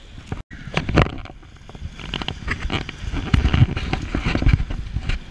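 Irregular splashing, knocks and crackles over a low rumble as a hooked fish thrashes at the surface beside the boat, growing busier from about two seconds in.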